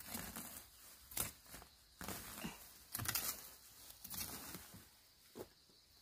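Weeds and undergrowth being pulled up by gloved hands: irregular rustling and tearing of stems and leaves, with a few sharp snaps, dying down near the end.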